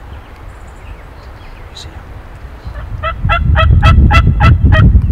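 A series of about seven turkey yelps, evenly spaced at about three and a half a second, starting about three seconds in, over a low rumble.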